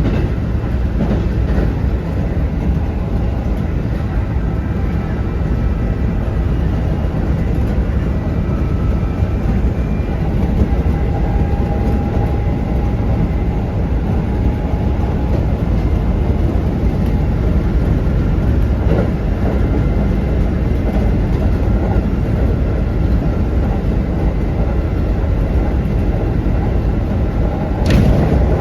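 Kintetsu 1810 series electric train running at speed, heard from inside the car: a steady rumble of wheels on rail with a faint motor whine, and a sharp knock near the end.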